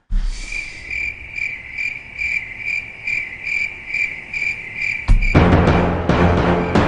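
Cricket chirping, a high, even chirp repeating about two and a half times a second. About five seconds in, loud music with heavy drums cuts in over it.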